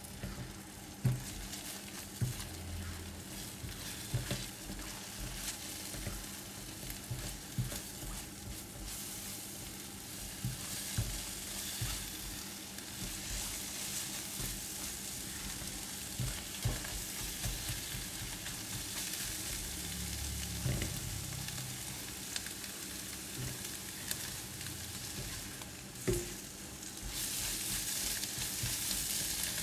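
Eggs frying and sizzling in oil in a nonstick wok, stirred and broken up with a silicone spatula, with soft scraping and light knocks as the egg sets. The sizzle grows louder near the end.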